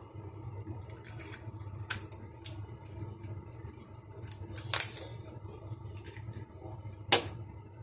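Scissors cutting open a spiny sea urchin's shell: three sharp crunching snips, about two, five and seven seconds in, with small crackles between them.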